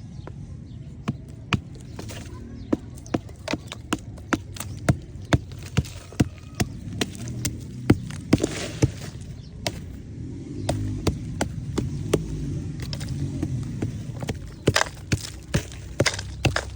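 A run of sharp knocks and taps, irregular but often two or three a second, with the densest runs in the first half and near the end.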